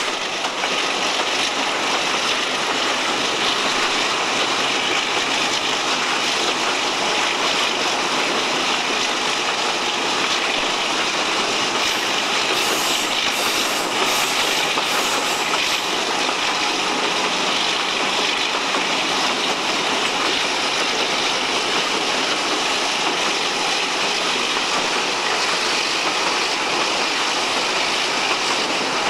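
Steady running noise of an Alco RS-8 diesel locomotive (OSE class A.201) hauling its train, heard out of the cab's side window: engine and wheels on rail together, with a few brief high-pitched squeals about halfway through as it takes a curve.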